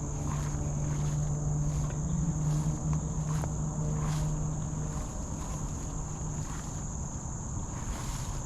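Insects chirring steadily at a high pitch, with a low steady hum through the first half and a few faint soft knocks.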